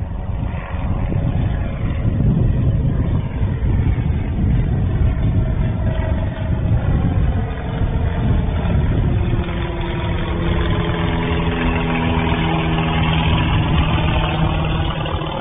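Single-engine propeller airplane's piston engine at climb power just after takeoff, a steady droning hum whose tone stands out more clearly in the second half.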